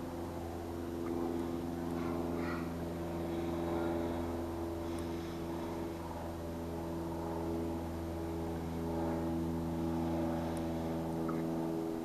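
A steady mechanical drone: a low hum with several fixed tones above it that hold the same pitch throughout, with a few faint high chirps about two seconds in and near the end.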